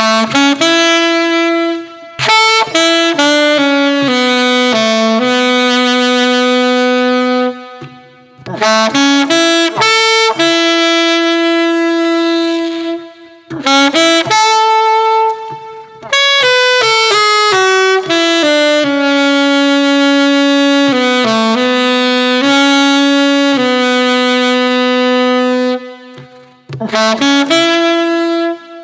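Yamaha YAS-23 alto saxophone played unaccompanied: a slow melody in phrases, with long held notes and short breaths between phrases.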